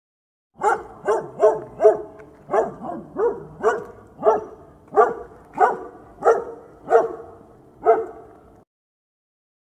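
Dog barking, about fourteen sharp barks at an even, quick pace. They start about half a second in and stop abruptly a second before the end.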